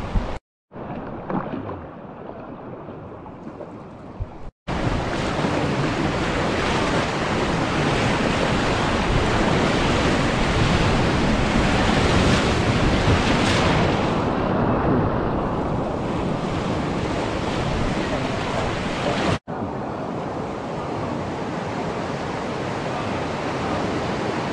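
Whitewater river rapids rushing, a dense steady noise of churning water. It grows much louder about five seconds in, and drops out briefly twice where the footage is cut.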